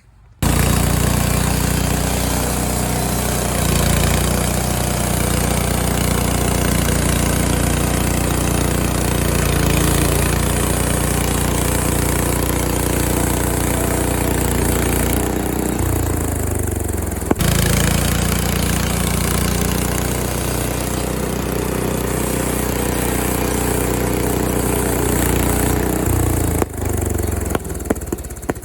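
Gasoline engine of a Frontier OS23 portable bandsaw sawmill running steadily at speed while the blade saws through a log. About halfway through the engine note falls away, a sharp click sounds, and it picks back up to full speed.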